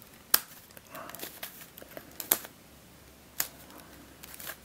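Sharp plastic clicks and clacks of an mf8 Starminx I dodecahedron twisty puzzle being turned by hand, roughly one a second. The turning is stiff and the corners catch, which the owner suspects comes from tensions set too tight.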